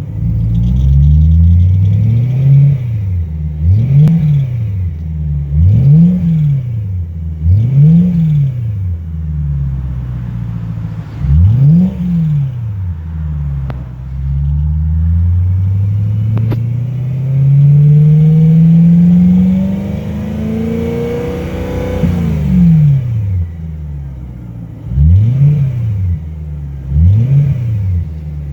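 BMW E90 M3's S65 V8 engine being revved in short throttle blips, with one longer, slower climb in the middle that drops off sharply, to show a weird noise the owner thinks could be an exhaust leak rather than a rod bearing problem.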